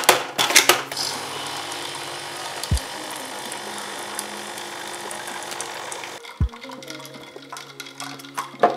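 Pod coffee machine: a few clicks as the capsule is loaded and the lid shut, then the pump runs steadily for about five seconds while coffee pours into the cup, stopping about six seconds in. A few lighter clicks and knocks follow near the end.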